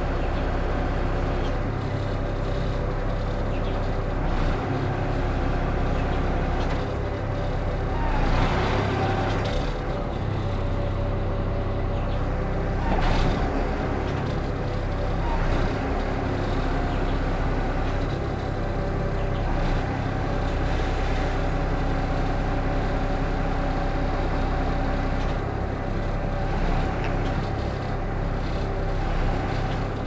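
Truck engine running steadily, powering the hydraulics of an Amco Veba knuckle-boom crane while the boom is worked by remote control. A brief hissing rush comes about eight seconds in and another about thirteen seconds in.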